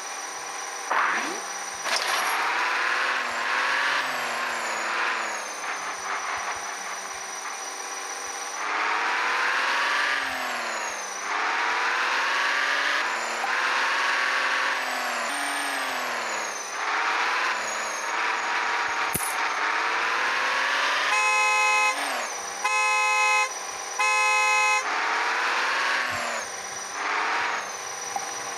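Vehicle engine sounds revving up and down again and again, with three horn honks about three-quarters of the way through.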